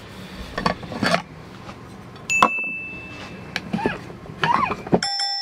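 Steel vacuum bottle being handled: light knocks and clinks as its cup and stopper are unscrewed, with a few brief murmurs. Near the end a bright chime sound effect rings out for about a second while the background drops away.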